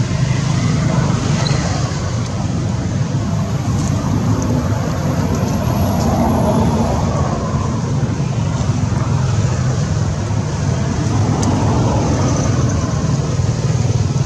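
A steady, even low rumble of motor traffic that does not break or change.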